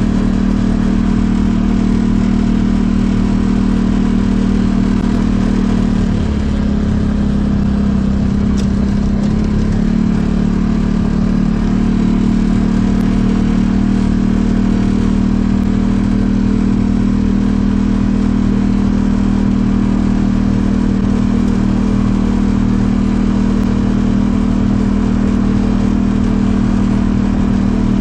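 The Polaris Ranger 570 UTV's single-cylinder engine running steadily, with a brief shift in engine pitch starting about six seconds in before it settles back.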